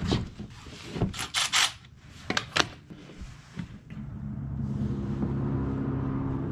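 A few sharp metal clicks and knocks from hand tools at the oil pan. From about four seconds in, a steady vehicle engine hum comes up and holds.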